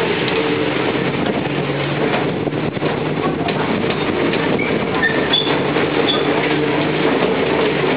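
Steady running noise of a rubber-tyred road tourist train heard from its open passenger carriage: a continuous low engine drone with road and carriage noise.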